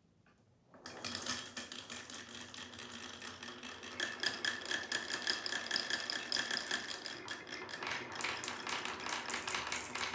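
Glass marbles released in a line rolling down a wooden marble run, clattering through the dips of the wave-track sections and knocking against each other in a dense, continuous rattle of clicks. It starts about a second in and grows louder about four seconds in.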